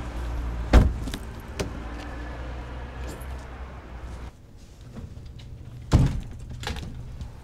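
A car door slams shut about a second in, over a low steady vehicle rumble. The rumble cuts off about four seconds in, and a second loud thump comes about six seconds in.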